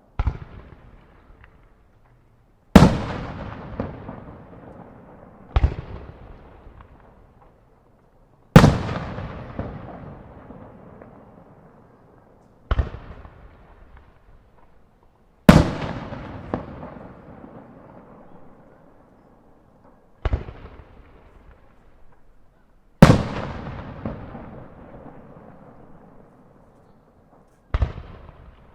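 Aerial firework shells (breaking shells) bursting one after another, about nine sharp bangs a few seconds apart. Each bang is followed by a long echoing rumble off nearby buildings.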